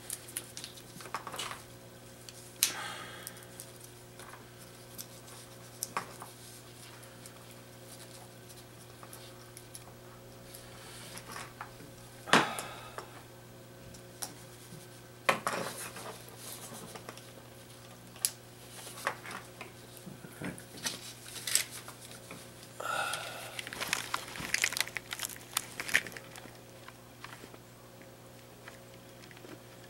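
Scattered small clicks, taps and rattles of tools and electronic components being handled on a workbench while resistors are soldered onto a circuit board, busiest near the end, over a steady low hum.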